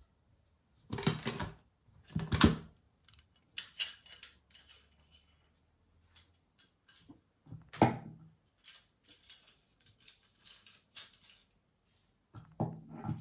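Metal hardware such as screws, nuts and spacers clinking and knocking as it is handled: two solid knocks in the first few seconds, a louder one about eight seconds in, and runs of lighter, high clinks in between.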